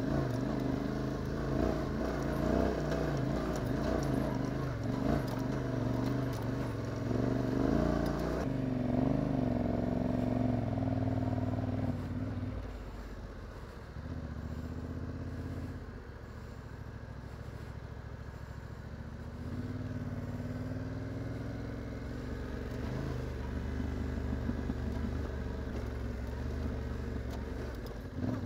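Yamaha Ténéré 700 parallel-twin engine pulling a motorcycle along a sandy dirt track. About twelve seconds in the engine eases off and runs quieter for several seconds, then picks up again.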